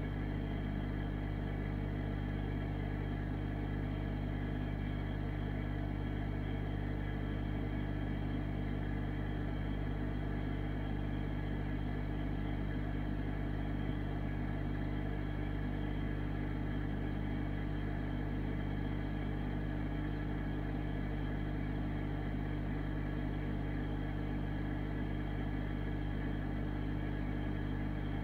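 Aquarium pump humming steadily, a low, even drone that does not change.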